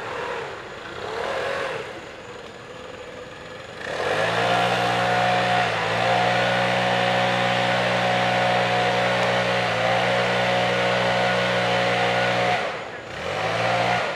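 A small engine running at a steady speed from about four seconds in until near the end, dipping briefly twice; before and after, its pitch rises and falls more faintly.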